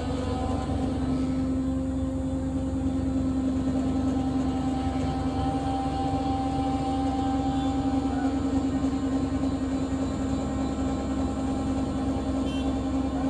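Steady motor hum with a held whining tone from a Liebherr tower crane's drive, heard inside the operator's cab while the crane is worked from the joystick.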